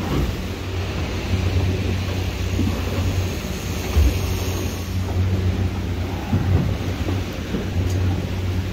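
Boat engine running steadily under way, a low even hum, over a constant rush of wind and water noise.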